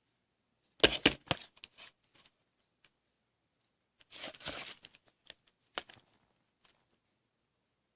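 Packaging being handled during an unboxing: a quick cluster of sharp clicks and knocks about a second in, a short rustling tear about four seconds in, then a few lighter clicks.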